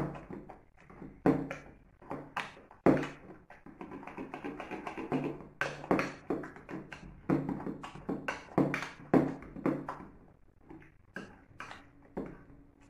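Boiled squash being mashed by hand: the utensil knocks and taps irregularly against the container, about one or two knocks a second, some with a short ring.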